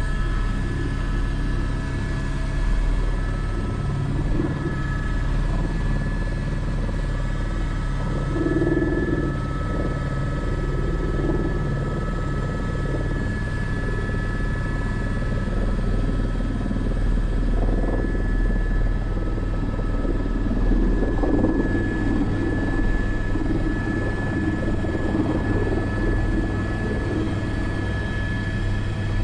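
Airbus AS350 B3 helicopter's single turboshaft engine and rotors running steadily, heard from the cockpit: a steady high turbine whine over a dense low rotor drone.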